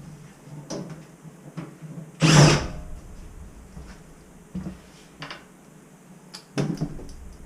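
Clicks and knocks of tools and parts being handled, with one louder clatter about two seconds in and a few sharper knocks near the end.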